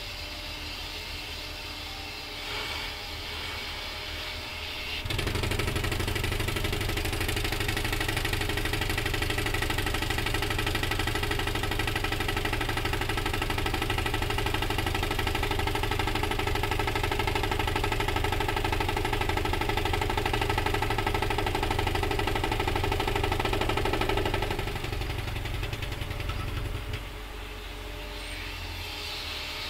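Guardrail pile driver with a built-in air compressor: its engine runs steadily, and about five seconds in its pneumatic hammer starts working at a rapid, even rate, louder than the engine, keeps on for about twenty seconds, then tapers off over a couple of seconds, leaving the engine running.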